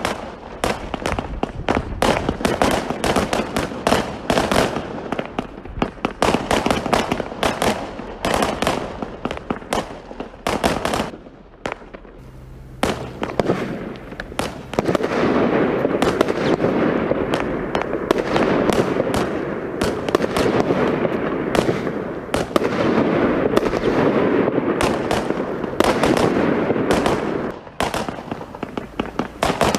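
Fireworks going off: a rapid run of sharp bangs and pops, a short lull, then a long stretch of dense crackling that gives way to separate pops near the end.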